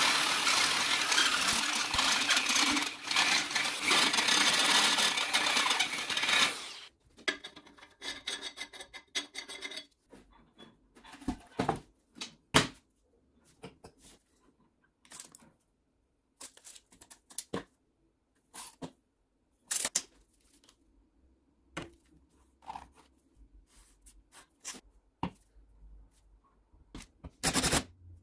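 A power tool runs for about the first seven seconds and then stops. After it come scattered sharp clicks and knocks, a few at a time.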